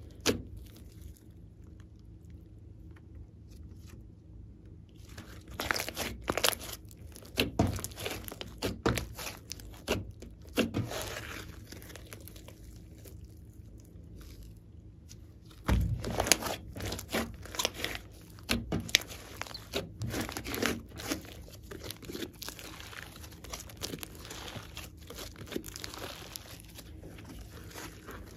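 Glossy slime mixed with clay being squeezed, stretched and folded by hand, giving irregular crackles, clicks and sticky pops. The sounds come in busy flurries with quieter, sparser stretches between them.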